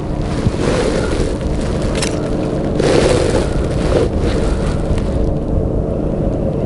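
Wind buffeting the microphone on open ice: a steady low rumble, with a few brief rustles about two, three and four seconds in.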